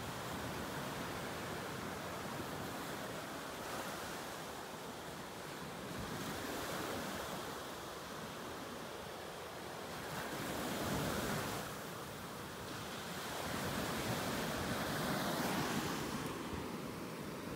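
Ocean surf washing onto a beach: a steady rush of breaking waves that swells and eases, loudest about ten seconds in and again near the end.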